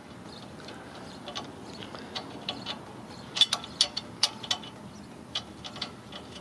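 Hand ratchet wrench clicking as a nut is tightened, in short irregular runs of clicks, densest about halfway through.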